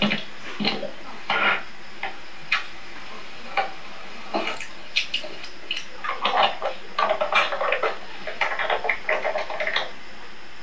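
Small plastic dessert cups and their lids clicking and clattering as they are capped and handled, heard through a TV's speaker. Scattered single clicks at first, then a denser run of clatter from about the middle until near the end.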